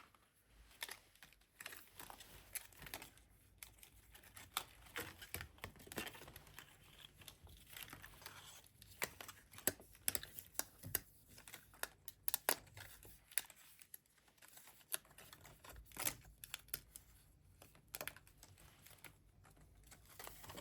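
Irregular small clicks and taps with crinkling and rustling, as of things being handled close to the microphone.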